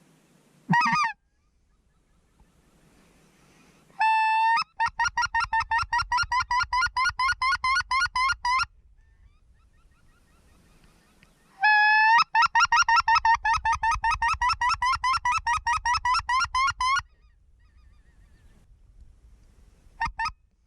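Goose honks: a single short honk about a second in, then two long runs of rapid, evenly spaced honks, about five a second. Each run opens with a longer drawn-out note. A brief pair of honks comes near the end.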